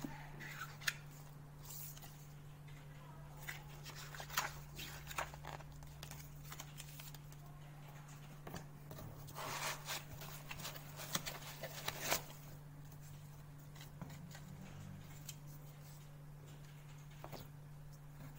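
Unboxing handling noises: paper rustling, and light clicks and knocks as the plastic suction-cup rope trainer units are moved about and lifted in a foam-lined box, busiest about halfway through, over a steady low hum.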